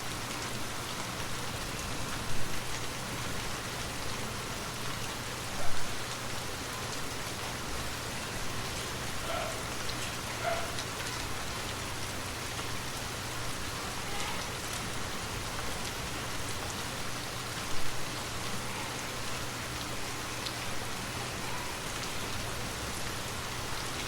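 Light rain falling steadily, an even patter of drops, with three louder sharp hits about two and a half, six and eighteen seconds in.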